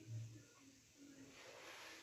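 Near silence: faint room tone with a soft hiss.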